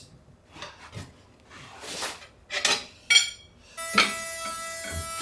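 Steel tyre levers clinking and scraping against a steel truck wheel rim as the tyre is levered off by hand, a few separate metallic knocks. Background music comes in nearly four seconds in.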